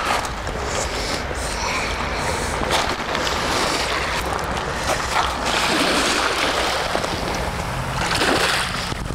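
Sea waves washing in and breaking on the shore, a swell of surf about every four seconds.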